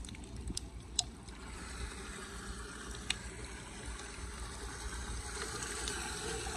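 Floodwater trickling and gurgling into a storm drain grate as a hand pulls wet leaves and twigs off it. The water sound grows steadily louder as the grate clears, with a couple of sharp clicks in the first few seconds.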